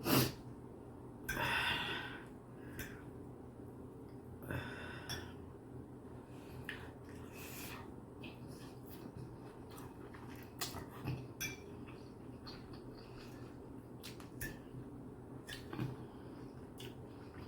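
Toothless mouth gumming and chewing chow mein, with scattered small clicks of cutlery and mouth smacks. There are two longer breaths through the nose in the first five seconds, over a steady low hum.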